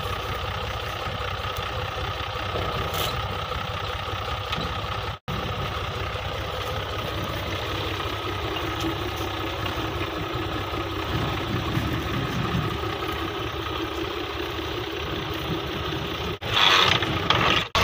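Fiat tractor's diesel engine running steadily, turning a flat belt that drives a tube-well pump. Near the end a louder, hissing stretch comes in.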